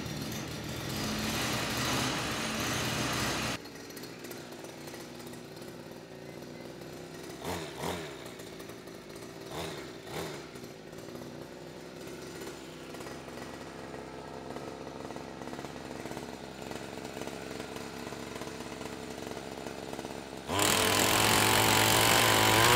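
60cc two-stroke gas engine driving a converted Milwaukee impact wrench. It runs fast for the first few seconds, then settles to a steady idle with a couple of short throttle blips. About 20 seconds in it jumps to full throttle, and the wrench hammers a bolt in reverse on the torque tester.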